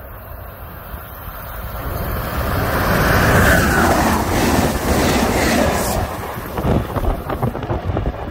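A train passing close by at speed: the rumble of wheels on rail builds over a couple of seconds and peaks, then turns into a rapid clatter of wheel clicks as the last cars go by.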